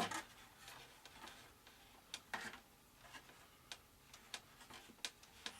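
Faint, irregular small clicks and taps of hands handling small parts while fitting a servo horn with epoxy.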